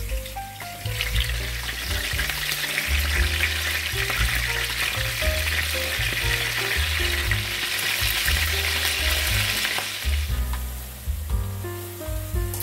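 A steady sizzling hiss that starts about a second in and fades out near ten seconds, over background music with a bass line and melody.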